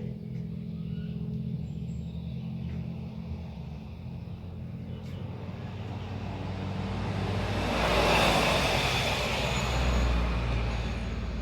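A road vehicle passing by, growing louder to a peak about eight seconds in and then fading, over a steady low hum.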